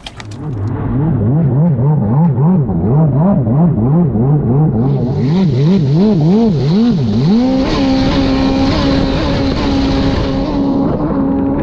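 Stand-up jet ski engine revving up and down about twice a second as the craft gets going, then climbing about two-thirds of the way through to a steady high-speed note that holds. A hiss of water spray and wind joins from about halfway.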